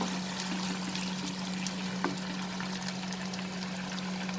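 Ginger-garlic paste sizzling and crackling in hot oil in a frying pan, a steady hiss with scattered small pops, over a steady low hum.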